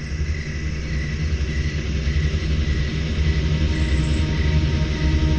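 A low rumbling drone of eerie background ambience, growing steadily louder, with crickets chirping. Faint held tones come in near the end.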